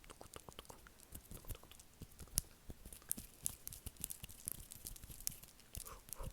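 ASMR mouth sounds made close to the microphone: a fast, irregular run of small wet clicks and pops, several a second.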